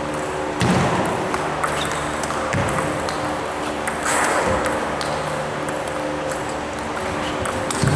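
Table tennis rally: the ball clicking sharply off the bats and the table in an irregular series, with a few louder scuffing surges among the hits, over a steady hum.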